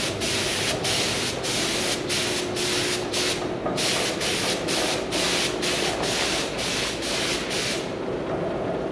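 Paint spray gun spraying in short hissing bursts, about two a second, as the trigger is pulled on and off across a dozer blade. The bursts stop about eight seconds in.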